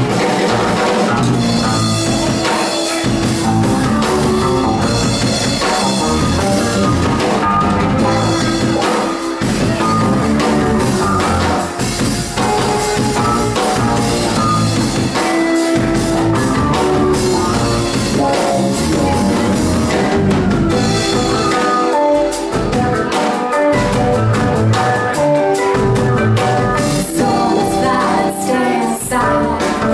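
A live R&B and soul band performing: women singing into microphones over electric guitar, keyboard and a drum kit.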